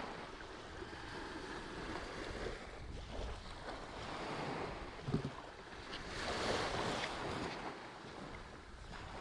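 Small waves breaking and washing up a sandy beach, with wind rumbling on the microphone; one wave swells loudest a little past the middle. A brief knock sounds about five seconds in.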